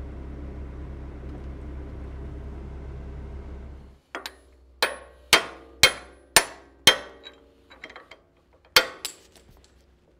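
The excavator's diesel engine runs steadily and cuts off suddenly about four seconds in. A hammer then drives out a steel roll pin in the quick coupler: five hard, ringing metal-on-metal blows about half a second apart, some lighter taps, and two more hard blows near the end.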